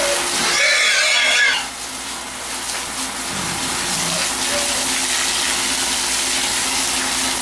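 Water jet from a garden hose spraying onto a concrete pig-pen floor and the pigs, a steady hiss. About half a second in there is a brief high squeal lasting about a second.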